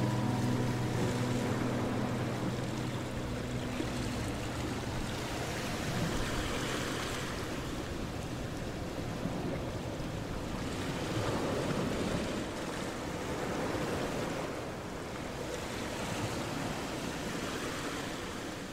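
The end of a song with guitar fades out over the first few seconds, leaving a steady rushing noise like wind or surf that swells and eases every few seconds.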